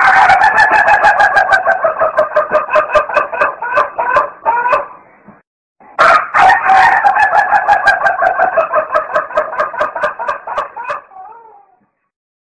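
Chickens calling: a loud run of quick, even clucking pulses over a held call for about five seconds, then after a short break a second, near-identical run that fades out before the end.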